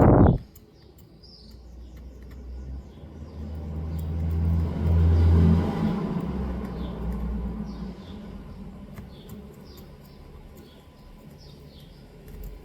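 A low engine rumble that swells to a peak about five seconds in and then fades, like a vehicle passing by, with small birds chirping repeatedly throughout.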